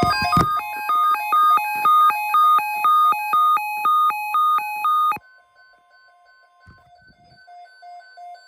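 Electronic weather-alert tones: a loud run of beeps stepping up and down in pitch, about two a second, over a steady high tone. It cuts off about five seconds in, and a fainter, even beeping carries on after.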